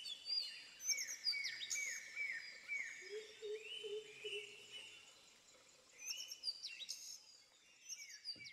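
Several wild birds calling: a quick run of downward-slurred whistles and scattered high chirps, with a short run of low repeated notes about three seconds in.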